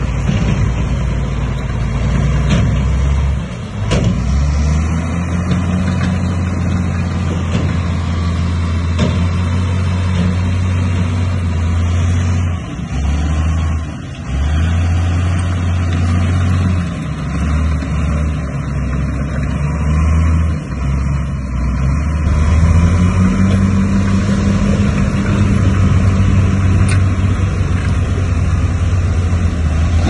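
Bulldozer's diesel engine working under load: a low, steady running note that steps up and down in pitch several times as the load changes, with a few brief drops in level.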